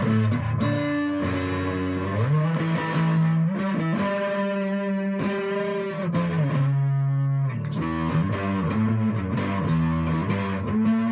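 Solid-body electric 12-string guitar played on its bridge pickup: a short passage of sustained notes, some sliding up and down in pitch, with a lo-fi tone.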